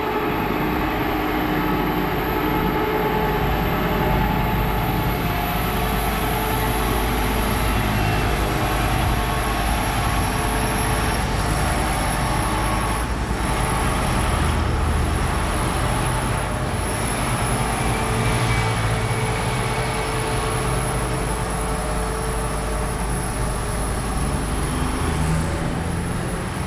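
Sewer or drain pumping truck at work, its engine and pump running in a steady, noisy drone.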